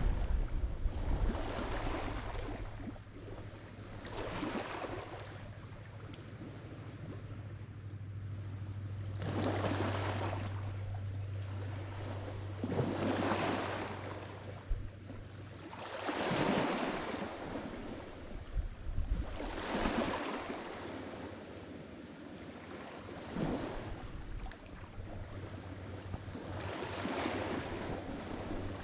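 Lake Michigan waves breaking on the shore, one wash swelling and falling away about every three to four seconds.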